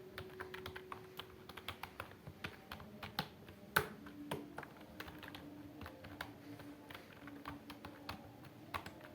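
Typing on an HP 150 wired keyboard's low-profile chiclet-style keys: a quick, irregular run of soft key clicks, with one louder keystroke a little under four seconds in.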